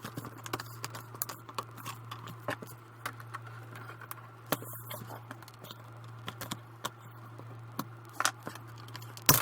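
A laptop screen's plastic bezel being pried apart from the display housing: scattered clicks and scrapes, with louder cracks about halfway through and twice near the end, over a steady low hum.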